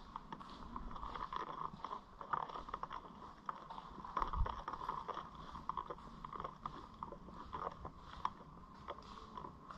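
Footsteps crunching and scraping on a gritty, debris-strewn concrete floor, heard as irregular small clicks and crunches.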